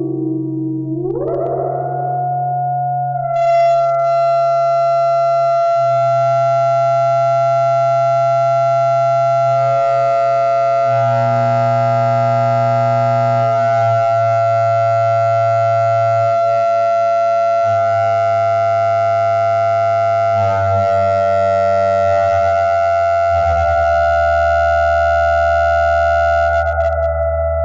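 Electronic synthesizer music: a tone glides upward about a second in and settles into sustained, held chords. A low bass underneath moves to a new pitch every few seconds and drops lower in the last few seconds.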